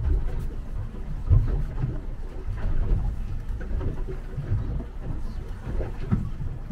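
Motorboat under way: an uneven low rumble of the running boat and water against the hull, with gusty wind buffeting.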